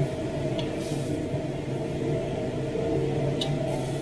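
Chopsticks turning bean curd sticks in a metal wok over a steady low hum, with a light click about half a second in and another near the end.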